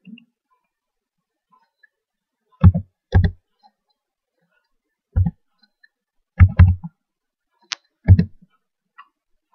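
Computer keyboard keystrokes typing a six-digit number, six separate taps: a pair about three seconds in, then one on its own, a quick pair, and a last one near the end.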